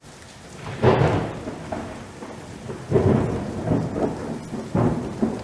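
Thunder rumbling over steady rain, with three loud rolls: about a second in, at about three seconds, and near the end.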